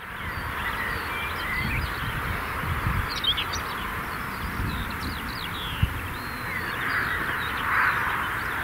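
Open-field ambience: small birds chirping and twittering throughout, a harsher call swelling near the end, and wind rumbling on the microphone.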